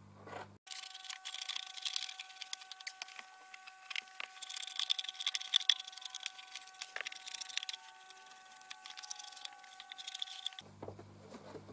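Scissors cutting through the stiff brim of a top hat: a dense run of crunching snips and crackles for about ten seconds, with a faint steady high whine underneath.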